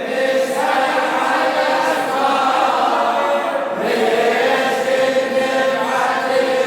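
A chorus of voices chanting a slow, sustained refrain a cappella, in the style of a Shia latmiya lament, with long held notes and no instruments.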